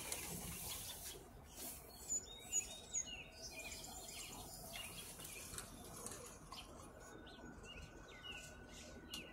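Small birds chirping: scattered short, high chirps, with three louder ones about two to three seconds in.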